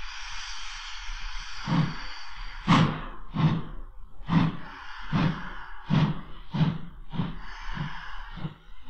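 ÖBB class 42 2-10-0 steam locomotive starting a heavy goods train from a stand: a steady whistle note dies away about a second and a half in, then strong, deliberate exhaust beats begin, slow at first and gradually quickening as the train gets under way.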